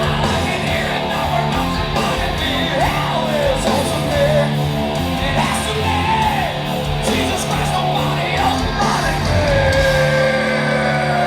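Heavy metal band playing live: distorted guitars, bass and drums with high, bending wordless wails over them, and a long held high note near the end.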